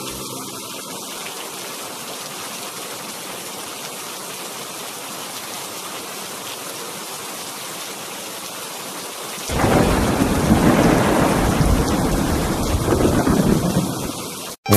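Steady rain falling, then, about two-thirds of the way in, a long, louder rumble of thunder that lasts several seconds. Music starts just at the end.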